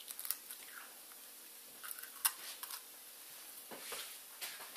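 A raw egg being broken open by gloved hands over a bowl: a few faint clicks of shell and handling as the egg is emptied into the bowl.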